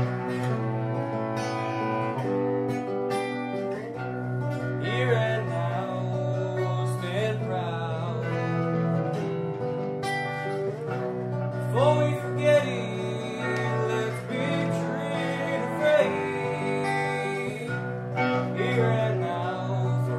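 Soundtrack music: a raw, unpolished song of plucked acoustic guitar with a singing voice that comes in and out over steady held notes.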